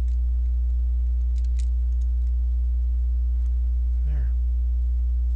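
Plastic Lego bricks clicking as pieces are handled and pressed together, a few sharp clicks about one and a half seconds in, over a steady low electrical hum. A brief murmur from the builder comes about four seconds in.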